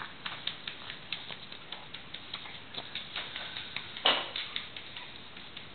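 A run of light, irregular ticks and taps, a few a second, with one louder knock about four seconds in.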